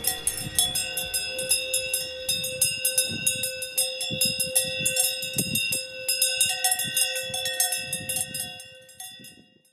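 Cowbells on grazing cows clanking irregularly, each strike leaving a long, ringing, metallic tone; the sound fades out near the end.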